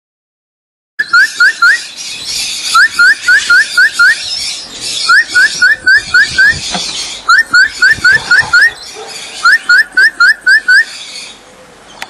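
A person whistling a recall cue to a free-flying parrot, which helps the bird orient itself in flight. Starting about a second in, there are five runs of four to six short rising whistles, about five a second, over a steady hiss.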